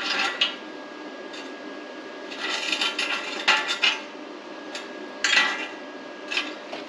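Metal parts clinking and scraping against each other in several short bouts as steel pieces are handled and checked on a workbench.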